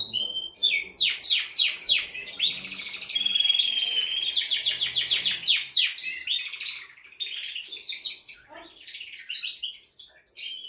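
Male domestic canary singing a fast, rolling song of rapid trills and quickly repeated notes, with one held whistled note a few seconds in. The song thins out near the end.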